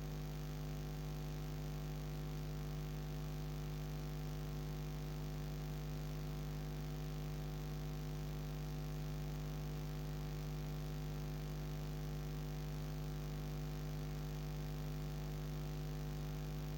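Steady low electrical hum, unchanging throughout, with no other sound standing out.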